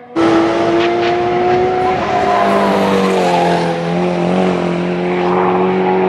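Racing car engine at high revs, loud and pitched, its note sliding slowly lower as it runs away down the track; about halfway through a second, deeper engine note joins it.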